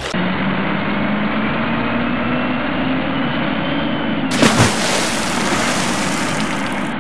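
Truck engine running, its pitch climbing slowly, with a short, loud clatter about four and a half seconds in as a toy dump truck tumbles off a ramp into the mud.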